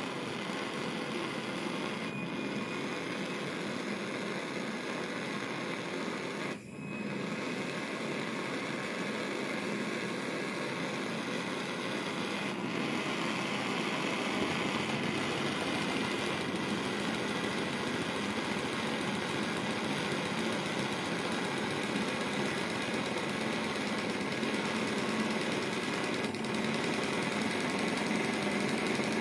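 Steady hiss of the alcohol burner heating a small model alpha-type Stirling engine. About halfway through, the flywheel is spun by hand and the engine starts running fast, its light mechanical running joining the hiss and getting slightly louder.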